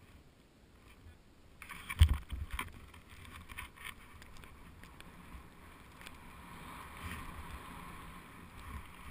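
Snow hissing under a rider sliding down a powder slope, starting suddenly after a quiet second and a half, with a heavy thump about two seconds in and a few smaller knocks, then a steady rush of snow.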